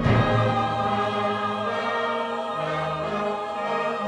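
Church choir singing a hymn arrangement with piano and instrumental accompaniment, holding long sustained chords. A new chord comes in at the start, and the lower parts move to new notes a little past halfway.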